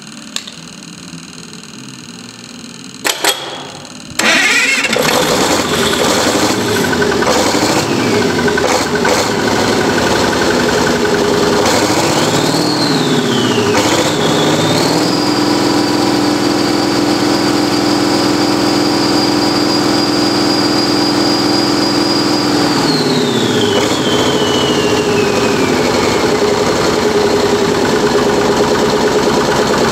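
International DVT573 V8 diesel engine starting after a few clicks about four seconds in, then running. It is revved up, held at a higher speed for about eight seconds, then brought back down to a steady idle.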